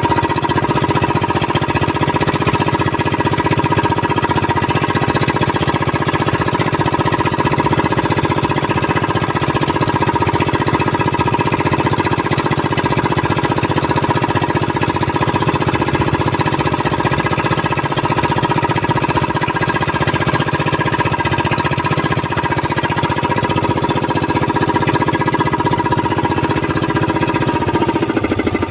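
Outrigger fishing boat's small inboard engine running steadily under way with a fast, even chugging; near the end its speed drops.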